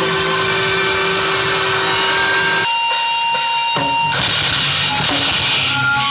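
Post-hardcore band playing live with distorted electric guitars. About two and a half seconds in, the low end drops out for roughly a second, leaving a guitar note ringing alone, and then the full band comes crashing back in.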